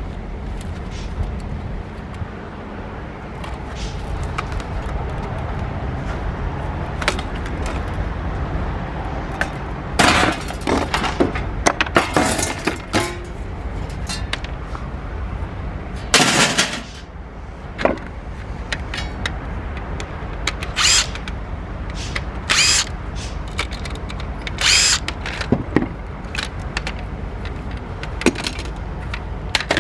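A DVD recorder being taken apart by hand: scattered clicks and knocks of parts and tools, with about six short, loud scraping or cracking noises spread through the middle and later part, over a steady low rumble.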